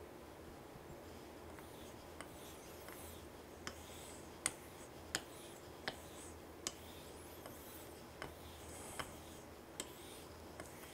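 Straight razor being honed on a soft Japanese natural whetstone under thick slurry: faint wet strokes with a light click about every three-quarters of a second as the blade turns over on its spine at the end of each stroke.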